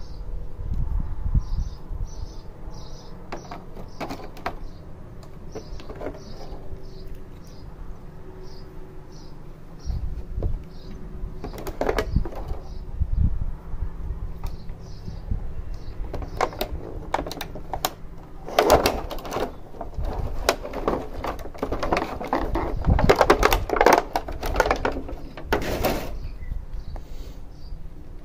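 Handling noises: irregular clicks, knocks and rustling, growing busier and louder in the second half, with short high chirps repeating in small groups in the background.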